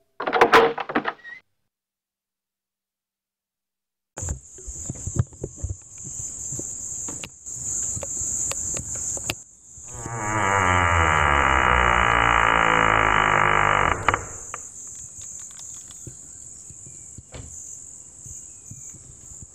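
A short burst of sound, then about three seconds of dead silence, then crickets chirping steadily with scattered clicks. From about ten seconds in, a loud drawn-out sound with many overtones lasts about four seconds over the crickets.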